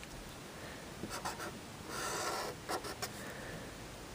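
Marker drawing lines on paper: a few short strokes about a second in, then a longer stroke of about half a second about two seconds in, followed by a couple more short strokes.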